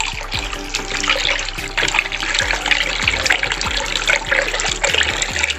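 Used frying oil pouring in a stream from a plastic jug into a bucket of caustic soda solution, splashing and trickling into the liquid as it is stirred in: the oil going into the lye to make soap.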